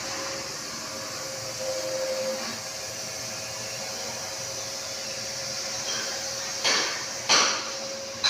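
Steady background noise with a faint hum. Near the end come two sharp hammer blows on metal, a little over half a second apart, each ringing briefly.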